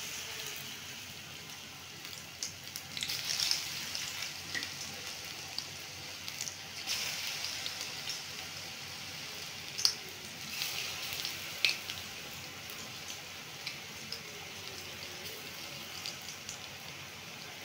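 Gram-flour pakora batter deep-frying in hot oil in a karahi: a steady crackling sizzle, with two sharp clicks about ten and twelve seconds in.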